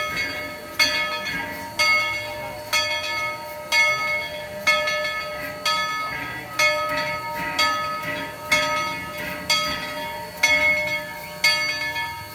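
Tweetsie Railroad locomotive bell ringing steadily, about one strike a second, each strike ringing on until the next.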